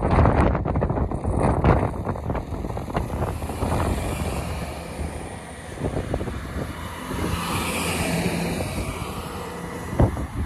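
Alstom Coradia LINT 41 diesel railcar running at the station, with engine and wheel-on-rail noise. A quick run of knocks comes in the first three seconds, and a steady hum and hiss swell about seven to eight seconds in.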